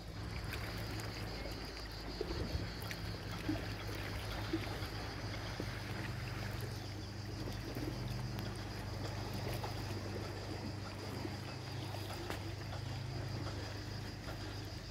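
Water splashing and lapping over a steady low hum, with a thin, steady high-pitched drone above.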